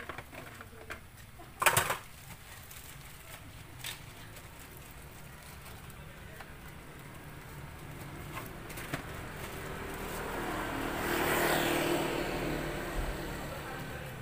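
A motor vehicle passing on the road, its sound swelling over several seconds and fading away near the end. About two seconds in there is a short, sharp clatter, the loudest sound here.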